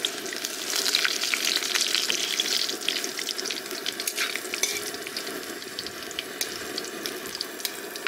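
Whole spices (bay leaves, dried red chillies and panch phoron) sizzling and crackling in hot oil in a pan, stirred with a metal ladle: the tempering for dal. The sizzle is loudest in the first few seconds, then eases off.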